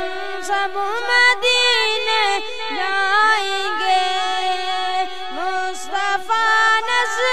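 A boy singing an Islamic devotional salaam on the Prophet, unaccompanied, into a microphone. He holds long, ornamented notes that slide up and down in pitch.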